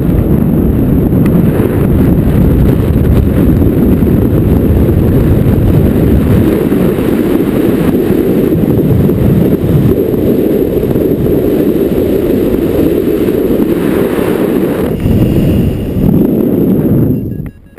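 Wind rushing and buffeting over the microphone of a camera carried on a paraglider in flight: a loud, steady, low rush that cuts off abruptly near the end.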